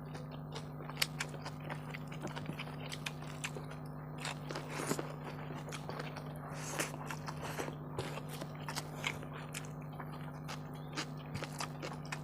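Close-up eating sounds of chicken curry with rice: irregular chewing, smacking and small clicks, over a steady low hum.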